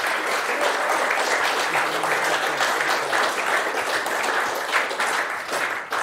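Audience applauding steadily, then dying down near the end.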